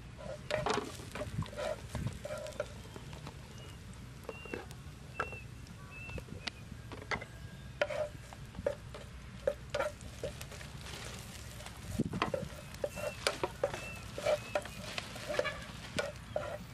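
Spatula scraping and tapping in a frying pan as chopped garlic fries, with a low sizzle beneath; the clicks and scrapes come irregularly. Short high chirps recur now and then.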